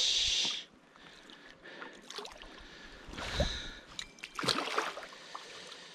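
A large itou (Sakhalin taimen) splashing as it thrashes in shallow water at the bank: a loud splash at the start that stops about half a second in, then smaller splashes about three seconds in and again about four and a half seconds in.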